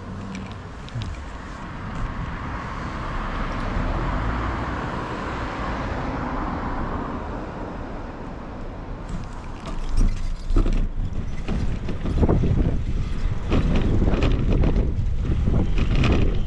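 Riding noise of a bicycle on a paved path: steady rolling rumble and wind on the microphone. A swell of noise rises and fades over the first several seconds, and heavier, gusty wind buffeting takes over from about ten seconds in.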